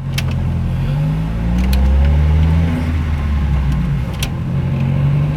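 Chevrolet Corsa engine running as the car is driven, its pitch rising and falling a little with the throttle, with three short sharp ticks. There is no clunking from the front end, since the worn steering box that caused it has been replaced.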